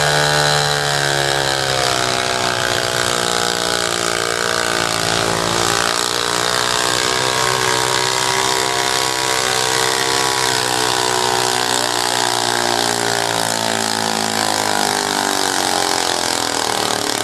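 Modified garden tractor engine running flat out under load, dragging a weight-transfer sled. Its pitch sags and recovers a few times.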